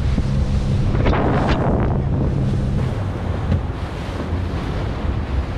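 Boat underway at speed: its engine hums steadily beneath heavy wind buffeting on the microphone and rushing water. The engine hum drops lower about three seconds in.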